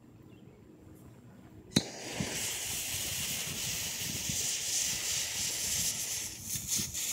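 The fuse of a 2.9-inch black-powder Coehorn mortar catches with a sharp pop about two seconds in, then hisses steadily as it burns toward the powder charge, with a few clicks near the end.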